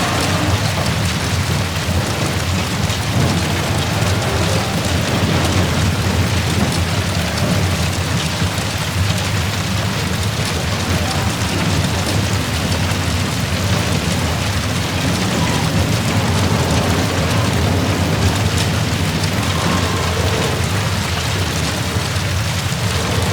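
Large fire roaring steadily after a jet crash: a dense, even rumble and hiss with no single impact standing out.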